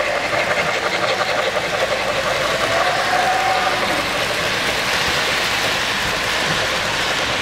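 O-scale three-rail model steam locomotive and passenger cars running past close by, a steady rolling rumble and clatter of wheels on the track.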